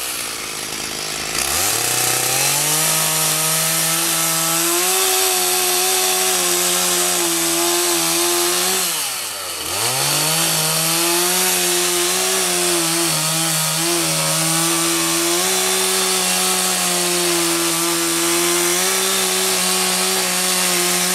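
Stihl two-stroke chainsaw cutting through a fallen tree limb at full throttle, its pitch wavering under load. It revs up about a second and a half in, drops back toward idle about nine seconds in, then revs up again.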